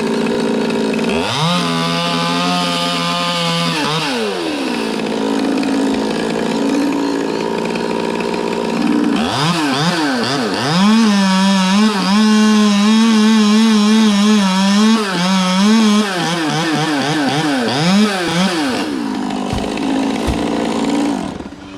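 Chainsaw engine revved up about a second in, held for a few seconds and dropped back to idle. It revs again from a little before the middle and runs high for about ten seconds with its pitch wavering as it cuts wood, then drops back to idle near the end.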